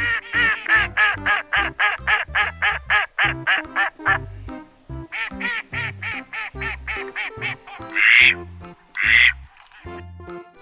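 Duck quacking in fast runs of about five quacks a second, in two bursts split by a short pause, then two louder, harsher quacks near the end, over background music.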